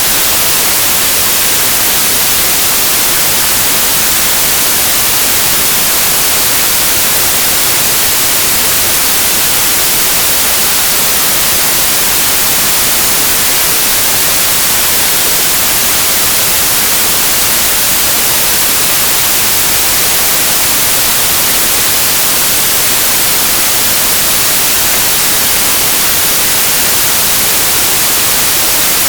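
Steady white noise, an even hiss that does not change.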